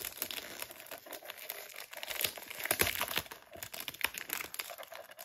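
Clear plastic film wrap crinkling and crackling as fingers pick at and peel it off a perfume box, with irregular small crackles and tearing sounds.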